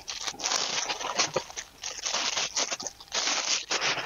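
Clear plastic packaging around a rolled diamond painting canvas crinkling and rustling as hands handle and flatten it, in several uneven bursts.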